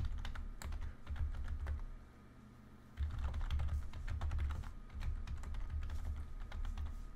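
Typing on a computer keyboard: quick runs of keystrokes, a short pause about two seconds in, then a longer run of typing.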